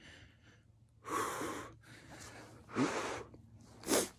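A man breathing hard with emotion, in three separate breaths: a long breath about a second in, a short gasp with a little voice in it near three seconds, and a sharp intake of breath just before the end.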